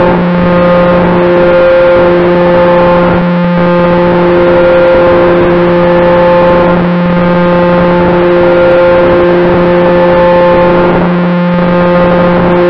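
Loud, steady drone of a radio-control model plane's propeller and motor at cruise, picked up by an onboard camera close to the spinning propeller. The hum holds one pitch, with a slow rise and fall in strength every few seconds.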